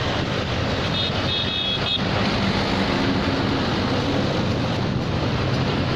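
Tractor and motorcycle engines running as they drive past in a convoy, with wind buffeting the microphone. A short high-pitched tone sounds about a second in.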